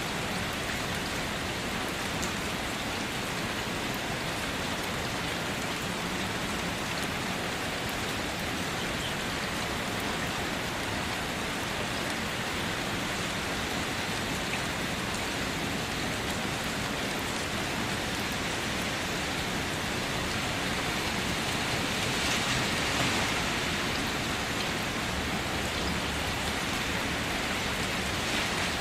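Steady rain falling, an even hiss of drops that swells a little about three-quarters of the way through.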